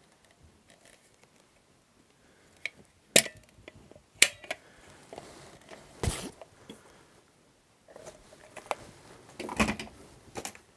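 A few sharp clicks and knocks with light handling noise between them, the loudest about three and four seconds in and more near the end: a caulking gun of construction adhesive being lifted away and set down.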